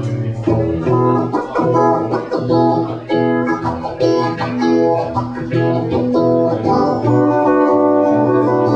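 Guitar playing, plucked notes and chords with some chords left ringing near the end.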